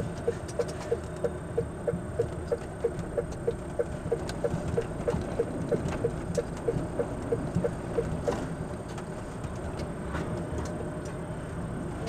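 A vehicle's turn-signal indicator ticking evenly about three times a second over low engine and road rumble at walking pace. The ticking stops about eight seconds in, once the turn at the junction is made.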